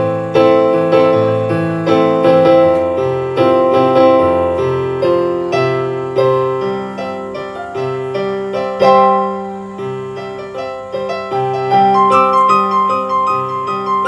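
Solo piano music: a melody over a bass line, several notes struck each second, each ringing and fading, moving into higher notes about twelve seconds in.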